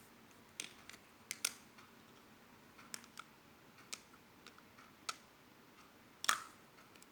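Light, irregular clicks and taps of small hard objects being handled, about seven of them, the loudest a little over a second in and near the end.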